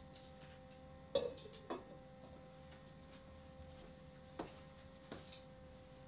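An enamelled steel pot lid is set down on a pot on a cast-iron wood stove, with a sharp clank and a short ring about a second in. Three lighter clicks follow, over a faint steady hum.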